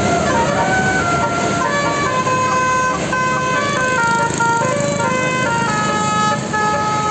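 A bus's Basuri telolet horn, a multi-tone musical horn, playing a quick tune of stepped notes over steady vehicle noise.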